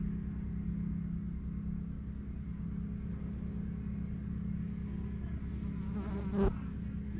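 Quadcopter drone rotors buzzing with a steady low hum. About six seconds in there is a short wavering noise that ends in a bump.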